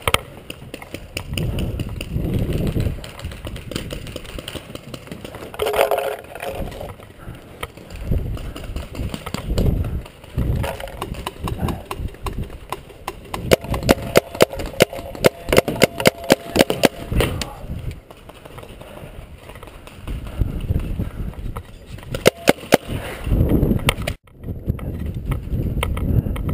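Paintball markers firing: scattered pops throughout, with a dense, fast string of shots about halfway through and another cluster near the end, over a low rumble from movement.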